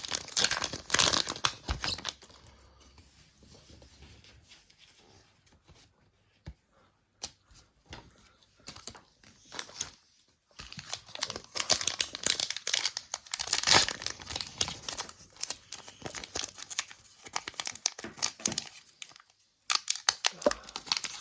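Foil trading card pack wrappers being torn open and crinkled, with cards and packaging handled in between. There are crinkly bursts at the start, a quieter stretch of scattered clicks, then a long run of tearing and crinkling from about halfway through.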